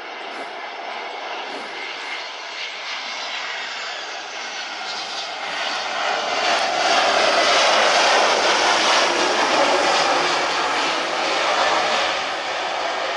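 Jet airliner's engines passing close by, their noise growing louder to a peak a little past the middle and then easing slightly.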